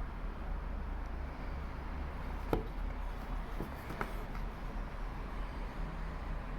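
A few light clicks or taps of something being handled, the sharpest about two and a half seconds in and another about four seconds in, over a steady low hum.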